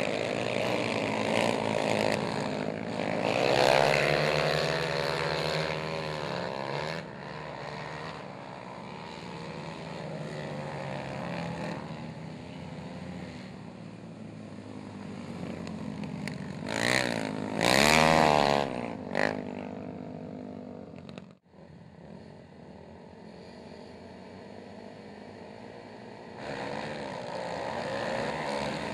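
Several racing quads' engines revving up and down as they lap a dirt oval. About two-thirds of the way through, one passes close and loud, its pitch rising and then falling. The sound drops out for a moment, and the engines come back more distant before a louder pack picks up near the end.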